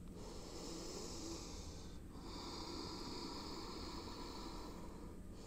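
A woman's slow, deep belly breaths, a soft hiss of air: two long breaths of two to three seconds each, with a short pause between.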